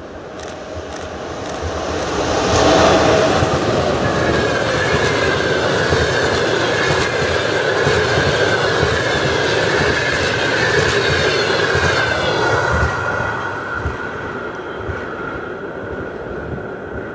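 EP1M electric locomotive and its passenger coaches passing at speed. The sound swells to its loudest about three seconds in as the locomotive goes by, then holds as the coaches pass, with a rhythmic clatter of wheels over rail joints and a steady high whine. It fades in the last few seconds as the end of the train passes.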